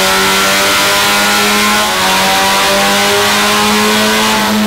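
Mazda Miata four-cylinder engine with an Eaton M45 supercharger at full throttle on a chassis dyno, loud, its revs climbing steadily through the pull.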